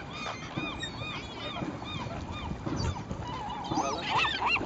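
A flock of waterbirds crowding in to be fed, calling over and over with many short, arched, overlapping calls that grow louder and denser near the end.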